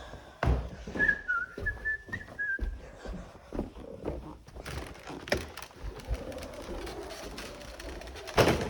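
Irregular knocks and bumps from vacuum cleaners being carried down a flight of stairs, with a brief high whistle about one to two and a half seconds in.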